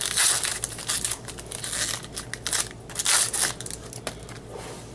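Plastic-foil wrapper of a baseball card pack being opened and crumpled, crinkling in several bursts that die down near the end.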